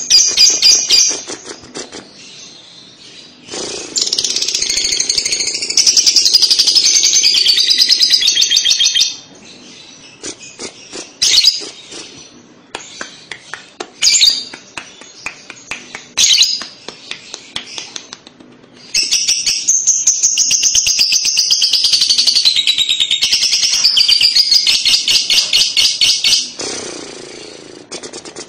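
Young lovebird's 'kekek' chatter. Two long runs of rapid, high-pitched trilling, one about 5 s long and the other about 7 s, with short single chirps in the gap between them.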